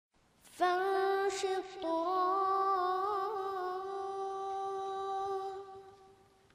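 A solo voice singing an Arabic nasheed unaccompanied: one long held note that changes pitch about two seconds in, wavers with ornaments in the middle, then fades out near the end.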